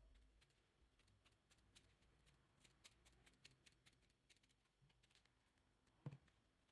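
Very faint snipping and clicking of scissors cutting a kitchen sponge, with a soft thump about six seconds in.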